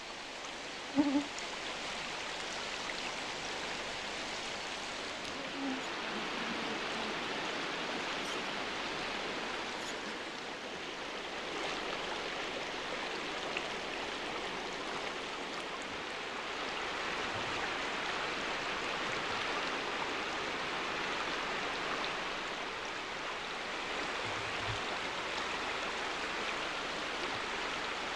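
Steady rush of a swollen, flooding river's fast-flowing water. About a second in, a brief, louder pitched sound stands out.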